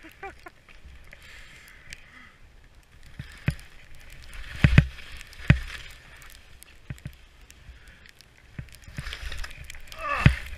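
Skis swishing through deep snow, a hiss that rises and falls with each turn, broken by several sharp knocks and thumps, the loudest two close together about halfway through.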